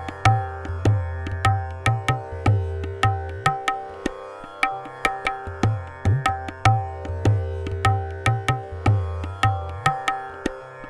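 Tabla playing a 16-beat Addha taal theka at about 150 beats a minute, the bass drum's strokes bending up in pitch, over a steady tanpura drone in C.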